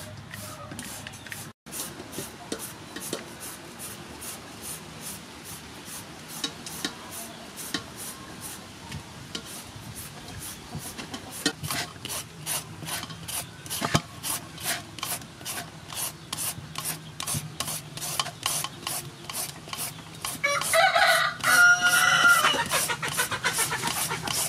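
Julienne peeler rasping down a green papaya in quick, regular strokes, about two or three a second, shredding it into strands. A rooster crows loudly near the end.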